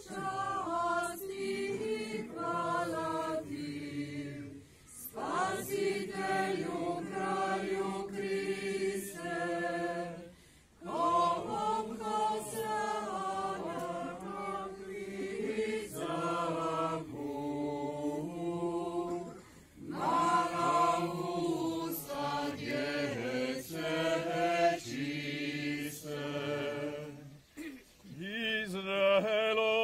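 A congregation of men and women singing a church hymn together, in long phrases broken by short pauses for breath.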